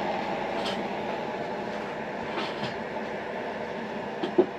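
Electric space heater with its fan running: a steady rushing airflow that slowly grows fainter, with a short sharp knock near the end.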